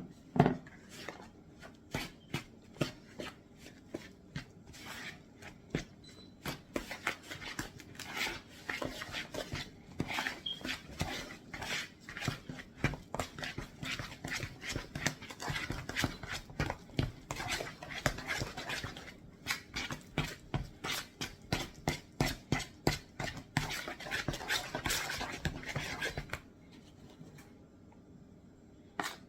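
Banana bread batter being mixed by hand in a bowl: a steady rhythm of strokes, about two to three a second, with a brief pause about two-thirds of the way through. It stops shortly before the end.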